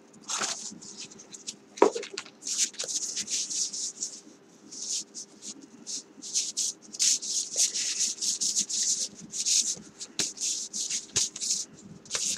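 Hands handling the packaging and disc sleeves of a boxed language course: irregular rustling and scraping, with a few sharp clicks.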